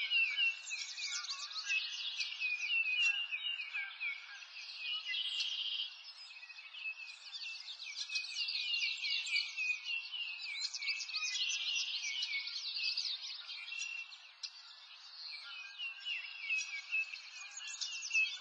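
Many songbirds singing at once: a dense, steady chorus of quick high chirps and trills.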